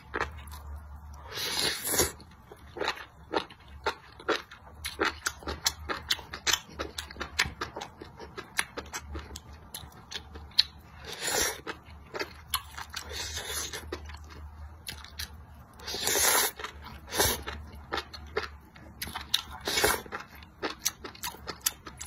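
Close-miked eating of spicy enoki mushrooms: wet chewing with many quick crisp clicks, broken by several longer slurps as strands of mushroom are sucked in.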